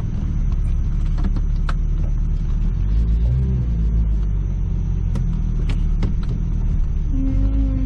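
1998 Jeep Cherokee XJ running steadily at low speed with a low rumble, with scattered light clicks. A short steady hum comes in near the end.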